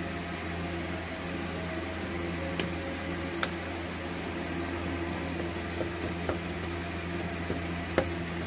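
Steady low hum under a few light clicks and taps as wires and a screwdriver are worked into the terminals of plastic-bodied contactors, the sharpest click near the end.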